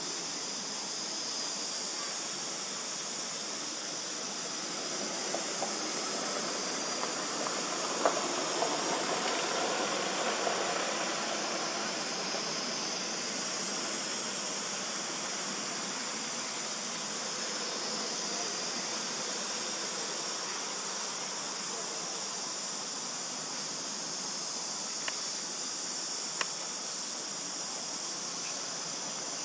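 Steady outdoor hiss of insects droning without a break. A sharp tick about eight seconds in opens a brief louder stretch, and a couple of faint clicks come near the end.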